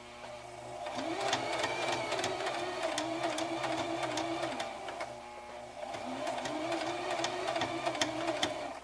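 Brother XL2600 sewing machine stitching a blind hem: the motor hums and the needle ticks rapidly. It speeds up in the first second, slows about halfway through, then runs up again and stops near the end.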